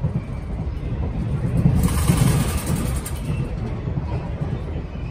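Cabin noise of a moving Tze-Chiang express train: a steady low rumble from the running gear on the track. A louder rushing hiss swells in about two seconds in and lasts about a second.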